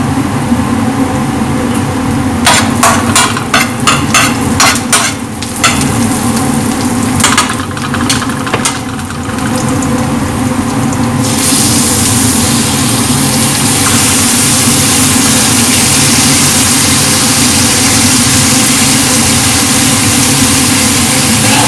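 Chopped garlic and onion frying in oil in a wide aluminium pan, with a run of sharp stirring strokes against the pan in the first half. About halfway through the sizzle turns much louder and steadier as whole squid go into the hot oil, over a steady low hum.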